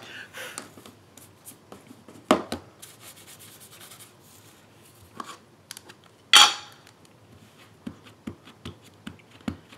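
Rubbing as a clear-mount rubber stamp on an acrylic block is wiped clean with a cloth and re-inked with a stamp pad, with light taps of the pad against the stamp near the end. Sharp clicks of hard plastic on the table cut through, the loudest about six seconds in.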